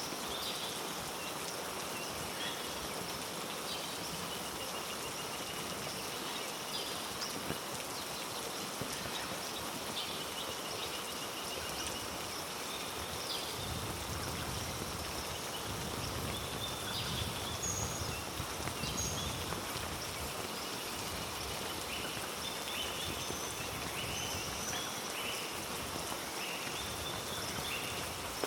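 Steady heavy rain falling through rainforest, with frequent short high-pitched animal calls over it. A deeper rush swells for several seconds near the middle.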